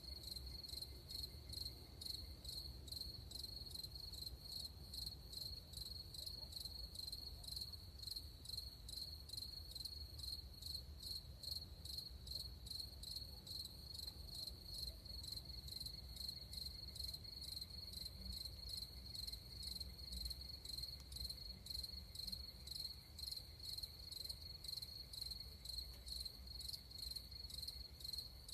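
Crickets chirping: a continuous high trill that pulses evenly a few times a second, over a faint low rumble.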